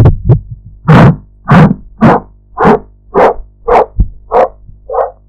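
Amplified Korotkoff sounds through a stethoscope during a blood pressure reading: a regular train of pulse thumps, a little under two a second, growing weaker near the end.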